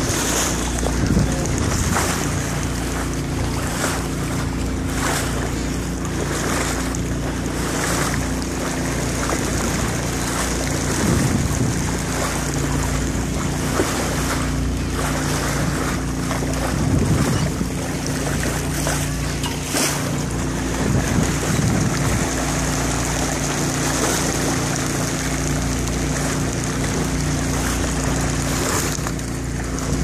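Wind buffeting the microphone and the wash of choppy water against a moving boat, with irregular gusts or splashes and a steady low hum underneath.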